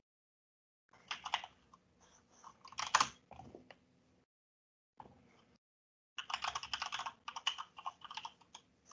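Typing on a computer keyboard: two short bursts of keystrokes, then a longer, faster run of keystrokes from about six seconds in.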